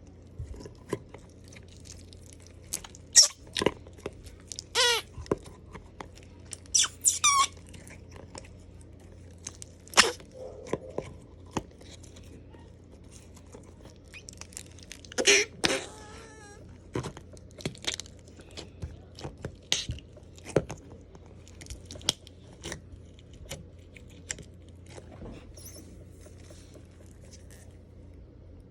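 Slime being squeezed and poked, with scattered sharp clicks and pops of air and a few squeaky squelches.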